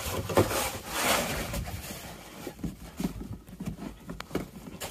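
Plastic snow shovel scraping and knocking against snowy wooden deck boards while a dog bites and tugs at its blade, with irregular rough scrapes and a few short knocks.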